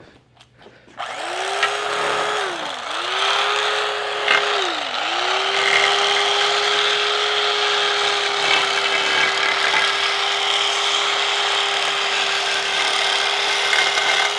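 Handheld power tool cutting gauge holes in a foam-padded gauge panel insert. Its motor starts about a second in, is let off and brought back up twice, then runs steadily under a loud, hissy cutting noise.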